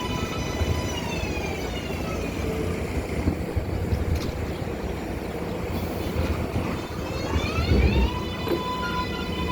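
R188 subway train running with rumble and a high whine from its electric propulsion. The whine's pitch glides down a little after a second in, and climbs again near the end.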